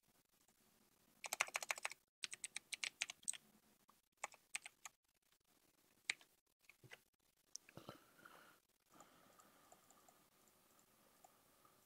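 Typing on a computer keyboard: quick runs of keystrokes during the first few seconds, then a few scattered single key taps.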